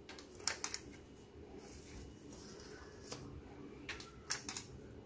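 Light clicks of a stainless-steel spring-release cookie scooper as its lever is squeezed to sweep the dough out: a pair just under a second in and a quick run of three about four seconds in.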